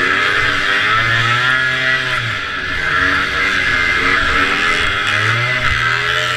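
Vintage racing snowmobile's two-stroke engine running hard, its pitch rising and falling with the throttle, over a steady rushing noise.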